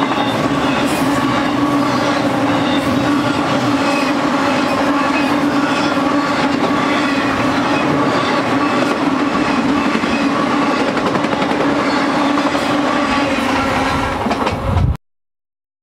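Intermodal freight train of truck trailers on flatcars rolling past, its wheels clattering over the rails with a steady tone running under the rumble. The sound cuts off suddenly near the end.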